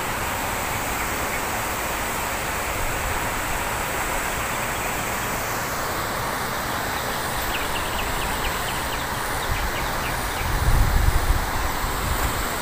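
Steady wash of road traffic noise, with a brief low rumble about ten seconds in.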